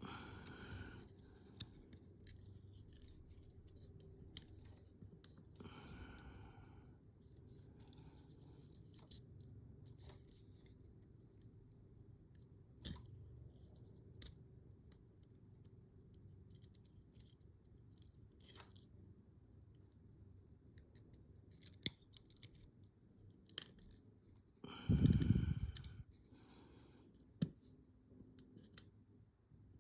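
Small metal clicks, taps and scrapes of a laminated padlock being taken apart by hand, its core and pins being worked out of the lock body. A louder burst of handling noise comes about 25 seconds in.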